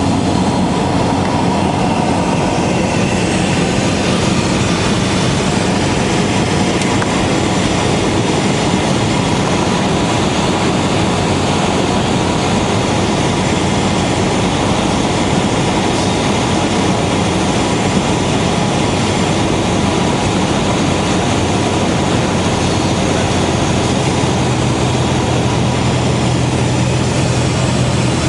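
Cessna 172S's four-cylinder Lycoming engine and propeller running steadily, heard together with a constant rush of airflow as the plane comes in to land. A low hum grows stronger about 24 seconds in.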